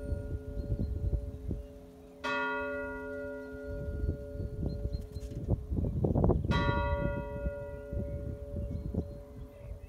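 A single church bell in the tower tolling slowly. It is struck twice, about four seconds apart, and each stroke rings on with many overtones and dies away slowly. A low rumbling noise runs underneath.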